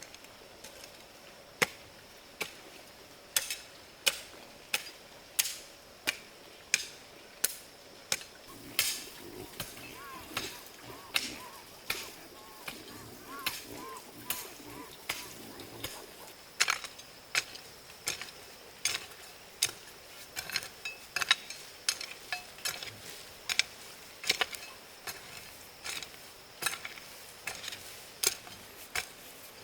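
A hand tool striking repeatedly, sharp separate strokes at roughly one to two a second.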